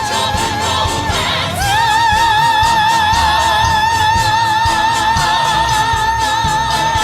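A song with a singer holding one long high note with vibrato, reached by an upward glide about a second and a half in, over instrumental accompaniment.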